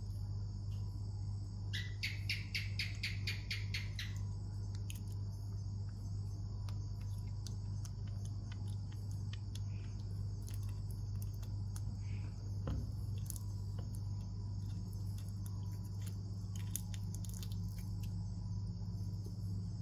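Baby macaque chewing a cicada: scattered small crunching clicks over a steady low hum and a constant high whine. About two seconds in, a quick run of about ten chirps lasts roughly two seconds.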